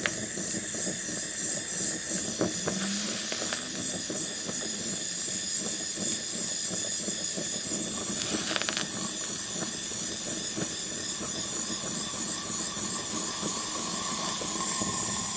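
Gas torch flame running with a steady hiss, heating tin plates to melt soft solder.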